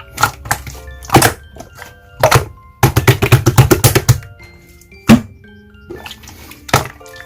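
Clear slime being pressed and played with, making sharp wet clicks and pops: single pops about a second apart, then a rapid run of about a dozen near the middle, and another single pop shortly after, over light background music.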